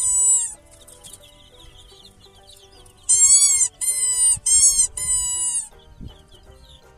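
Five loud, drawn-out animal calls, each rising and then falling in pitch: one at the start and four in quick succession about three seconds in. Background music and faint high peeping run beneath them.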